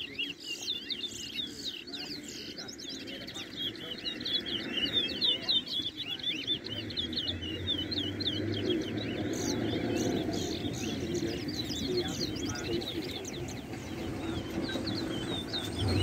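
Caged towa towa finches singing in a song race: a rapid run of high, repeated chirping notes. A low rumble rises underneath from about halfway.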